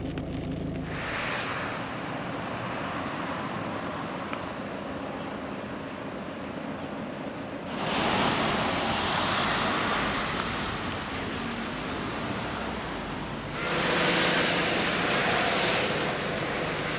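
Street traffic noise on a wet road: a steady hiss, with two louder swells of tyre noise as vehicles pass, about halfway through and again near the end.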